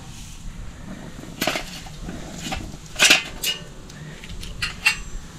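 Metal charcoal chimney starter loaded with briquettes being set down on a concrete paver: a handful of sharp clanks and knocks, the loudest about three seconds in.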